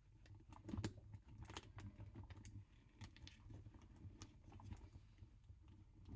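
Faint, irregular clicks and light rustling of a purse strap and its hardware being handled and clipped onto the bag.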